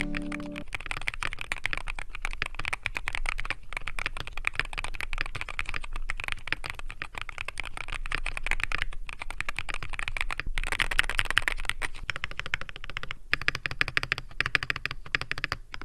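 Fast continuous typing on a Morkblade MK60 60% keyboard with magnetic Hall Effect switches in an aluminium case: a dense stream of key clacks, broken by a few brief pauses.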